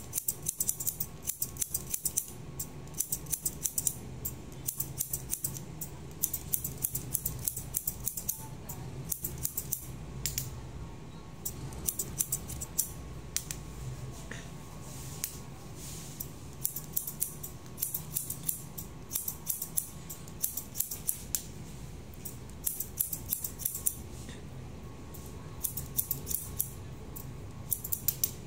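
Hairdressing scissors snipping hair, a rapid run of sharp clicks, in bursts separated by short pauses.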